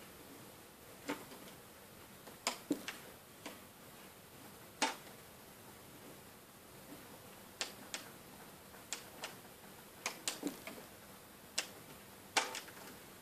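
Light, irregular clicks and snaps as a hook tool works rubber bands off the pegs of a plastic Wonder Loom, the bands snapping against the pegs. The clicks come about every second or so, unevenly spaced, some in quick pairs and clusters.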